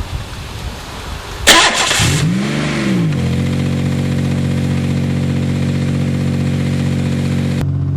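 A sudden loud burst about one and a half seconds in, then the crushed Buick's 3.8-litre V6 revs up and back down and settles into a steady idle, running sweet.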